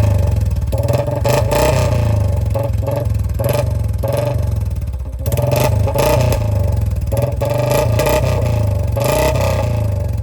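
A 2024 Royal Enfield Bullet 350 (J-series single-cylinder) runs through a short-bottle silencer on a C-bend exhaust. It runs loud and continuous, with a short dip in level about halfway through.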